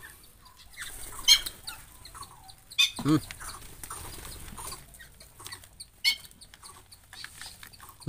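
Birds calling: several short, high chirps, and about three seconds in one louder, lower call that rises and falls in pitch.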